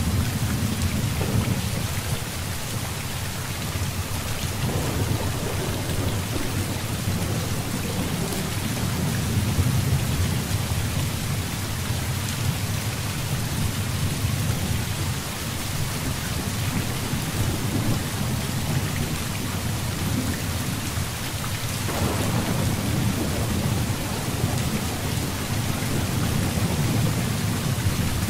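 Heavy rain falling steadily, with low rolling thunder rumbling underneath that swells and fades. A stronger roll of thunder builds about three quarters of the way through.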